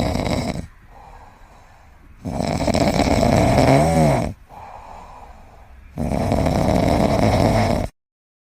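A sleeping pet snoring loudly: three long rattling snores with quieter breaths between them, the middle one carrying a whistling tone that rises and falls. It stops abruptly near the end.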